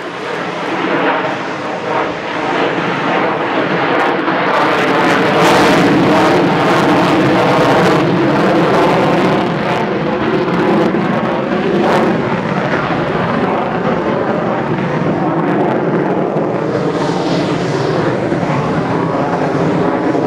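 Lockheed Martin F-35 fighter's single Pratt & Whitney F135 turbofan, loud and continuous as the jet flies its display and climbs away. The sound swells through the middle with a few sharp crackles, then holds a little quieter.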